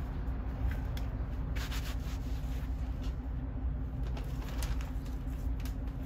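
Steady low background hum, with a few brief scratchy rustles from the gloved hand and the potting soil in the plastic bucket.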